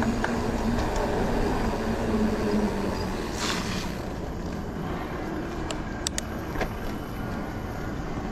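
Specialized Turbo Levo electric mountain bike setting off: a steady motor hum for the first two to three seconds over steady tyre and wind noise, with a few sharp clicks near the end.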